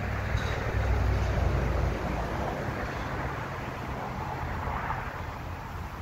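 Small branch saw cutting into a thick fallen tree trunk, a steady sawing noise that is heaviest in the first two seconds and eases a little after.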